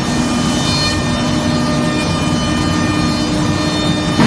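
QUICK UA-481 CNC router cutting a wooden board, its spindle and cutter making a steady, loud machine drone with several held whining tones.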